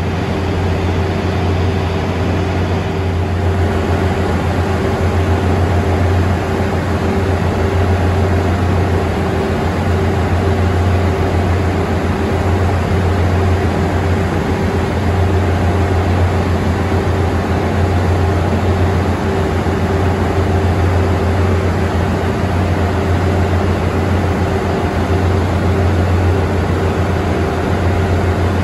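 Idling diesel train engine: a loud, steady low hum with a constant higher tone above it.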